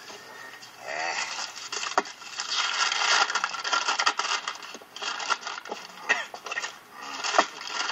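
A brown paper bag crinkling and rustling as it is opened and handled, with a sharp click about two seconds in.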